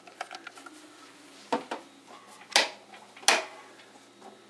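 Plastic clicks and knocks from a small plastic tank's clear lid being fitted and closed. There are a few sharp clicks, with the two loudest knocks in the second half, less than a second apart.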